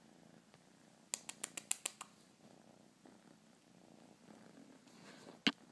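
Domestic kitten purring softly and steadily. A quick run of about seven sharp clicks comes about a second in, and one louder click comes near the end.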